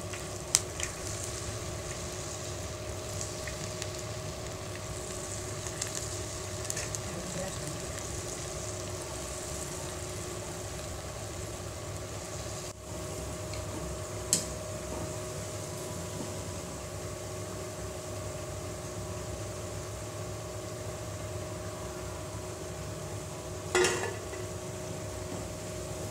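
Batter-coated cauliflower florets deep-frying in hot oil: a steady sizzle with fine crackling, broken by a few sharp clicks, the loudest near the end.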